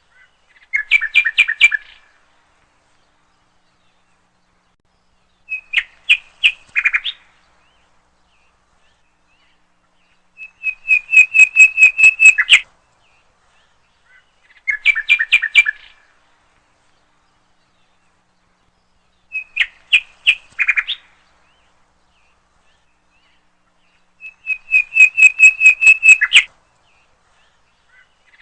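A bird singing: six short phrases of rapid repeated high notes, each lasting a second or two, coming about every four to five seconds with silence in between.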